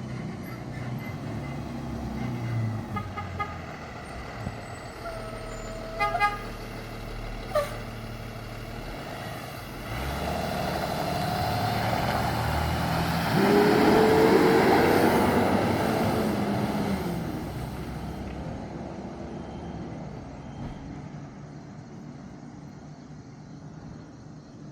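Hino 268 diesel truck driving past and sounding its car-type horn: a few short toots about five to seven seconds in, then one longer steady honk of about three seconds near the middle, the loudest sound. The engine and road noise swell as the truck comes by and fade afterwards.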